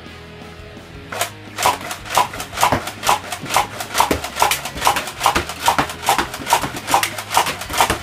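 Nerf Rival Artemis pump-action foam-ball blaster slam-fired in rapid succession: a quick, even run of sharp pops and clacks, about three a second, starting about a second in.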